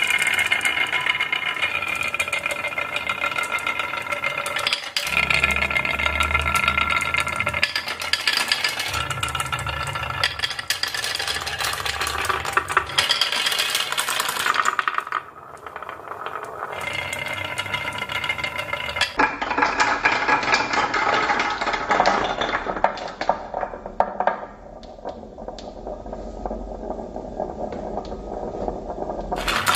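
Marbles and small toy vehicles rolling and clattering down a HABA wooden marble run: a continuous stream of clicks, clacks and rattles, with a deeper rolling rumble twice in the first half.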